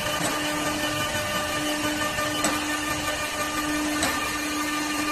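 CNC wood lathe running steadily, its spindle motor humming as the cutter turns a wooden cue-stick blank, with a few faint sharp ticks.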